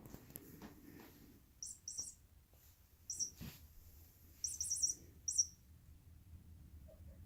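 Short, high-pitched bird-like chirps in small groups: a pair, a single chirp, then a quick run of four or five about halfway through and one more after it. A few soft knocks come just before the first chirps.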